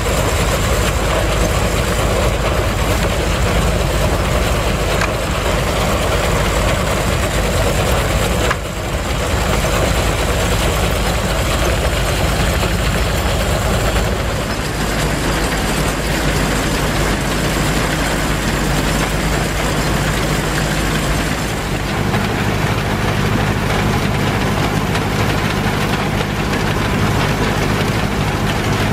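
1911 Case 36 x 58 inch threshing separator running under load as oat bundles are fed in: a loud, steady mechanical din with a low hum, with a brief dip about a third of the way in.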